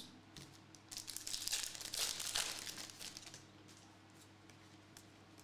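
Plastic trading-card pack wrapper crinkling as it is torn open and handled, for about two seconds.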